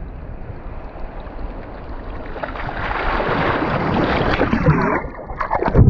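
Boat under way: low engine rumble and rushing wind on the microphone, growing louder a couple of seconds in.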